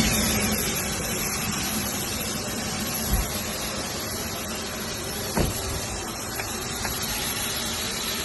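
Steady rushing cabin noise inside a private plane, with two short knocks about three and five and a half seconds in.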